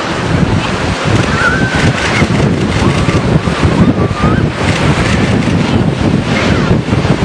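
Surf washing and breaking close by, with heavy wind buffeting the microphone. A few faint, wavering high calls sound over it about a second in and again around three to four seconds in.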